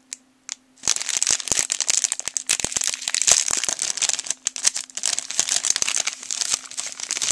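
Clear plastic candy bag crinkling and crackling as fingers squeeze and mash the pink candies inside. It starts about a second in and goes on in a dense, irregular run.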